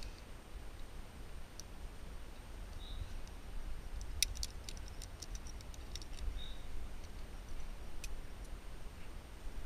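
Metallic clicking of a quickdraw's carabiners as the climber grabs it and clips the rope in: a quick cluster of sharp clicks lasting about two seconds, near the middle.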